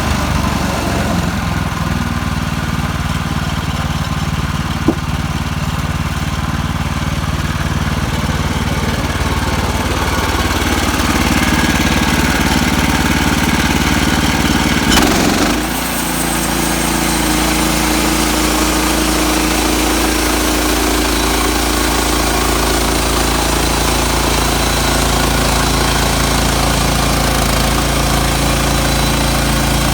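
Gasoline engine of a portable bandsaw sawmill running steadily, with a sharp click about five seconds in and a brief clatter about halfway, after which the engine note shifts slightly.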